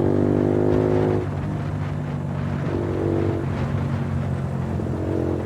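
Suzuki Gixxer motorcycle engine running steadily while riding in traffic. A horn sounds over it for about the first second, and briefly again around three seconds in.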